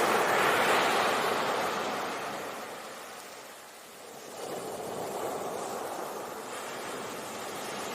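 Sea waves on a shore: a wash of surf swells and fades away about halfway through, then the next wave comes in and keeps washing.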